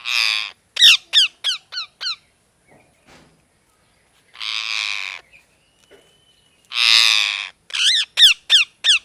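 Pet ringneck parakeet calling: harsh screeches alternating with runs of quick, sharp chirps that each sweep downward, about five in a row.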